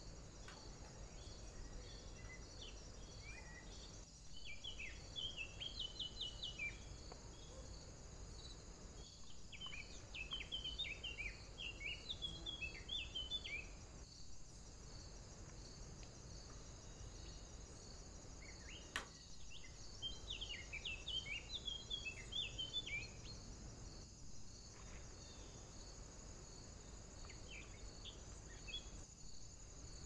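A songbird singing in woodland: four phrases of quick, varied high notes, each a few seconds long except a brief last one, with pauses of several seconds between them. One sharp click comes just before the third phrase.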